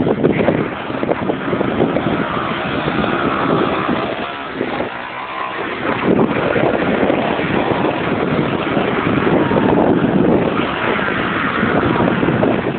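Jeep Wrangler coming down a steep rocky hill: a loud, rough, continuous noise of the vehicle, jolting throughout, with wind buffeting the microphone. It eases briefly about five seconds in.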